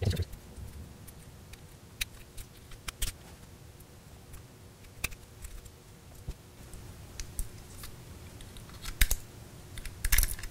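Tiny precision screwdriver clicking and scraping on the small screws of a Lytro camera's lens assembly, with light handling of small metal and plastic parts. Sharp clicks come every second or two, with a denser cluster near the end.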